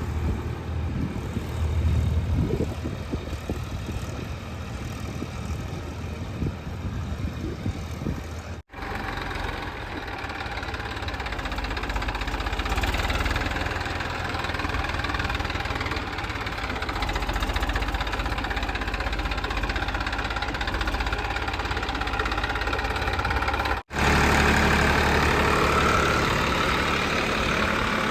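Diesel engine of a JCB 3DX backhoe loader running at work. It comes in three stretches joined by abrupt cuts, and is louder after the first cut, about a third of the way in.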